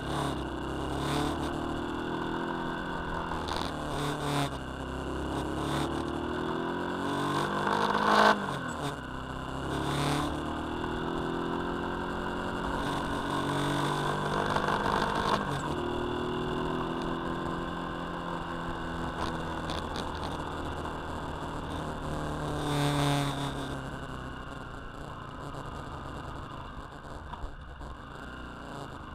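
A motor vehicle's engine running under way, its pitch climbing and dropping back several times as it pulls and eases off, with a sharp knock about eight seconds in.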